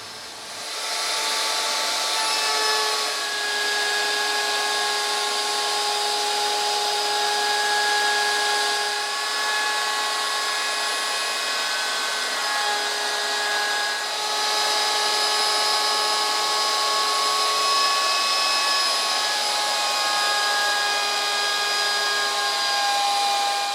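Electric power tool running steadily on wood, a continuous motor whine over a hiss, its pitch drifting slightly as the load changes, stopping near the end.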